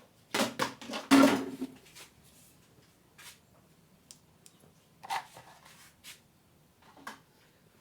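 Kitchen handling sounds: a cluster of knocks and clatter about half a second to two seconds in, then a few isolated clicks.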